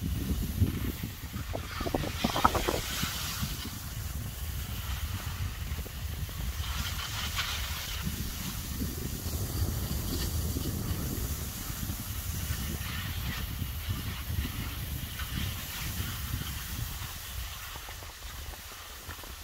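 Skis sliding and scraping over packed snow during a descent, with wind buffeting the microphone as a steady low rumble. Louder hissing scrapes come about two seconds and seven seconds in.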